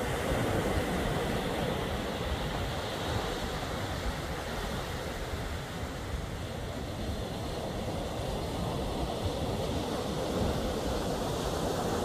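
Steady seaside roar of surf and wind buffeting the phone's microphone: an even, rumbling noise with no distinct tones or sudden sounds.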